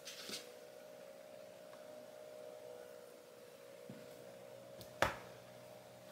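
Faint rustling of cotton fabric being smoothed and folded on a cutting mat, over a steady low hum, with one sharp tap about five seconds in.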